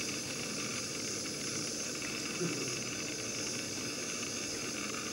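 Small gas-canister burner hissing steadily with its flame lit, with one soft knock about two and a half seconds in.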